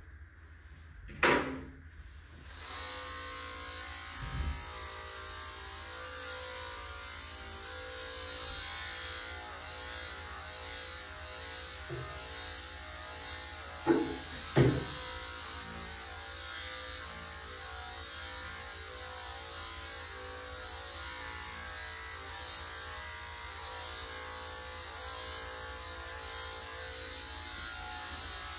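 Electric dog-grooming clipper switched on a couple of seconds in and running steadily as it trims a cockapoo's coat, with a sharp sound just before it starts and a few brief knocks in the middle.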